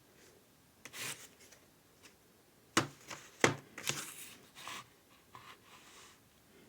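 Packaging being handled during an unboxing: rustling and rubbing, with two sharp clicks a little under a second apart near the middle.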